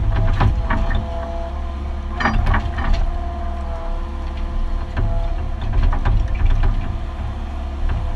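Mini excavator's diesel engine running steadily under load, heard from inside the cab, with its hydraulics working the digging arm. Scattered clunks and knocks from the bucket and linkage as it digs, the loudest about two seconds in.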